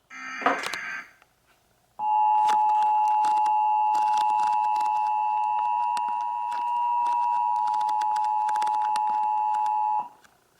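Weather radio sounding the two-tone Emergency Alert System attention signal: a loud, steady dual tone that starts about two seconds in, holds for about eight seconds and cuts off abruptly. It heralds a new alert, a tornado warning. A short burst of sound comes right at the start, before the tone.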